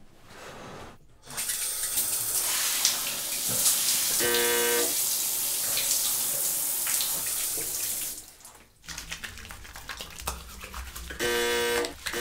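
Shower spray running steadily onto a person in a tiled shower, cutting off about eight seconds in. A short steady pitched tone sounds twice, once mid-spray and once near the end.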